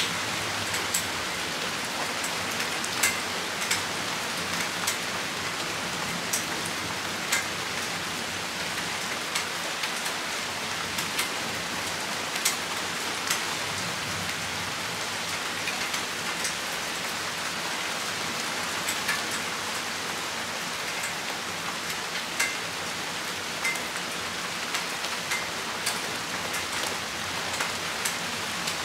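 Steady rain shower falling with an even hiss, broken by frequent sharp taps of single drops striking close by.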